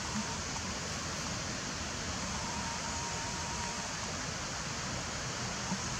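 A steady, even rushing noise with no distinct events, and a faint thin tone for a second or two in the middle.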